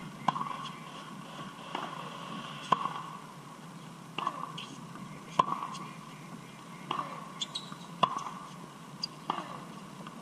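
Tennis balls struck by rackets in a baseline rally: a sharp pop about every 1.3 seconds, every other one louder.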